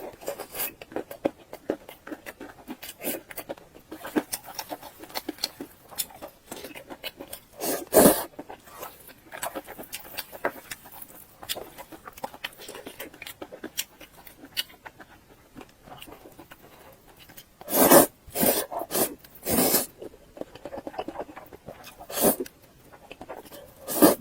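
Close-miked eating mouth sounds: wet chewing and lip smacking on soft, fatty pork belly, as a steady run of small clicks and smacks. Louder, longer mouthfuls come about eight seconds in and several times from about eighteen seconds on.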